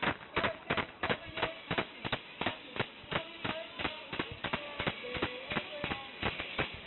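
Restaurant staff clapping a steady beat, about three claps a second, with a tambourine, while singing a birthday song.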